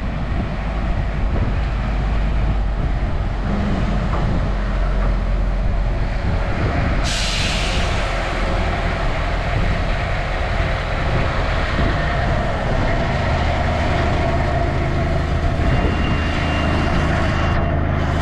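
Southend Pier Railway's electric passenger train pulling into the station and drawing up alongside the platform: a steady low rumble, with a short hiss about seven seconds in and a thin high tone near the end. Wind buffets the microphone.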